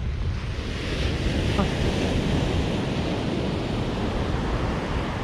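Ocean surf on the beach: a wave breaks and washes in, swelling about half a second in and easing off over the next few seconds, with wind buffeting the microphone as a low rumble.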